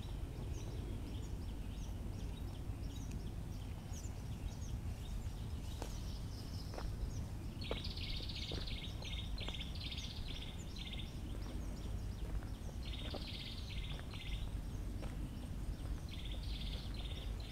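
Outdoor ambience of birds calling over a steady low rumble: scattered small high chirps throughout, and three runs of quick, harsh repeated notes from one bird, the longest about eight notes in a row.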